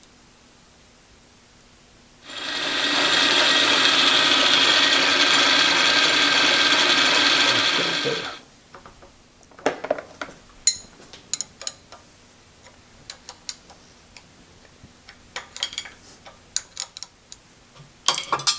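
A motor-driven shop machine starts and runs loud and steady for about six seconds, then is switched off and winds down quickly. Scattered light metallic clicks and taps follow as parts are handled and a gear indexer is fitted on the lathe.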